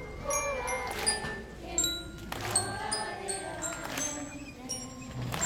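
Festival float music: metal bells ringing in sharp, irregular strikes over singing voices.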